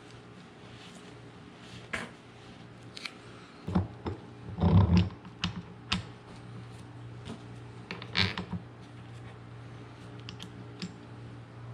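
Small metal parts and hand tools being handled, giving scattered clicks and knocks with a louder clatter about five seconds in, over a steady low hum.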